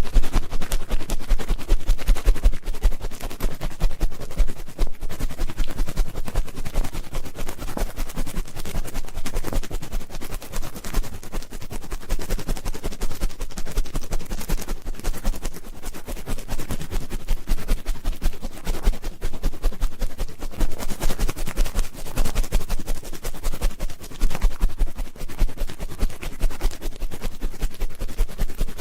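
Close-miked ear-cleaning ASMR: an ear pick scraping and rustling right at the microphone, a dense, unbroken stream of rapid scratches and crackles.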